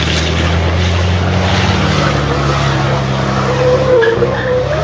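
Racing trucks' turbo-diesel engines running on the circuit, with a wavering tyre squeal near the end.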